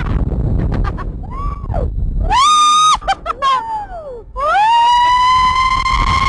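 Ride passengers screaming, high-pitched, over a low rumble of wind and ride noise. There is a long held scream about two and a half seconds in. Another scream rises near the end and is held.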